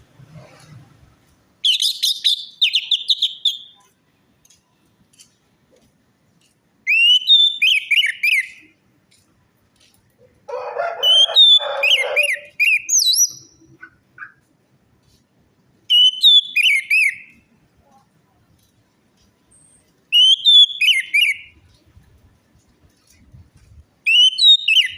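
Orange-headed thrush song: six short phrases of rich whistled notes sweeping up and down, one about every four seconds. A lower, rougher sound runs under the third phrase.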